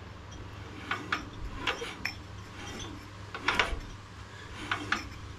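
Small, irregular clusters of sharp metallic clicks from the valve train of a single-cylinder Tecumseh 12.5 hp OHV engine as it is turned over by hand; the rocker arms are only loosely set, not yet adjusted to spec.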